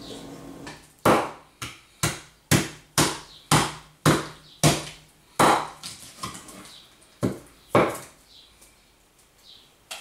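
Meat cleaver chopping fish on a thick wooden chopping block: about nine sharp strikes roughly two a second, a short pause, then two more.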